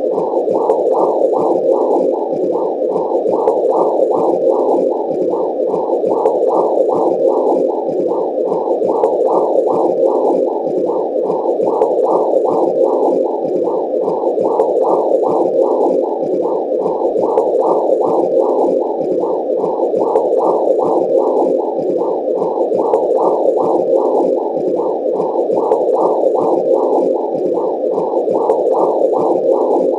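Womb sound effect: a steady, muffled whooshing noise that swells in an even rhythm about twice a second, like blood flow pulsing with a heartbeat.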